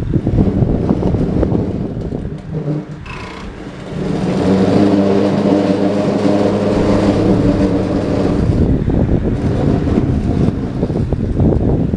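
Home-built electric tractor's motor humming steadily under load for about four seconds, starting about four seconds in, over wind rumbling on the microphone.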